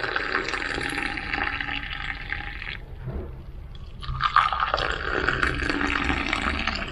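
Milky South Indian filter coffee poured from a height in a thin stream into a stainless steel tumbler, splashing and frothing. The pour stops about three seconds in, and a second pour into another steel tumbler starts about a second later.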